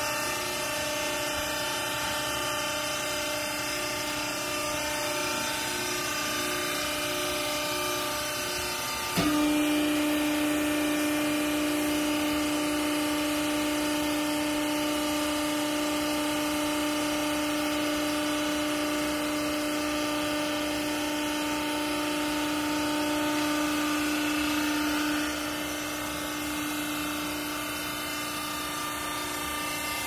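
Hydraulic power unit of a rag baling press humming steadily. About nine seconds in, a click, and the hum steps up louder with a strong steady tone; it drops back about 25 seconds in.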